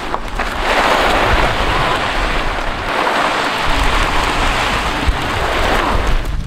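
Motorcycle jacket and Saint motorcycle jeans scraping along coarse chip-seal asphalt as a rider is dragged over it on a tow rope: a loud, steady, gritty hiss of abrasion. Wind rumbles on the microphone underneath.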